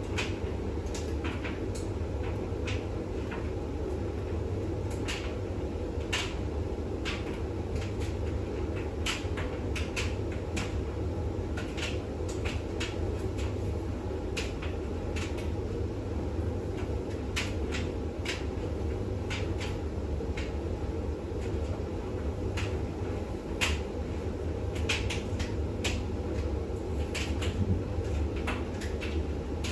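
Bosch WAX32GH1 washing machine in its intermediate spin after the wash: a steady low hum from the motor and turning drum, with irregular clicks and light knocks scattered throughout.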